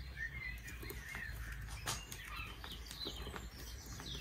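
Faint background birdsong of quick, repeated chirps, with a few light clicks as screwdrivers work into a headrest.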